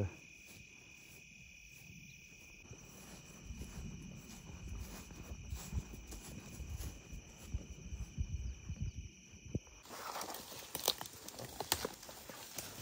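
Field insects such as crickets chirring steadily, a constant high buzz at two pitches, over soft low thumps. About ten seconds in the chirring cuts off and footsteps crunch and crackle through leaf litter and brush.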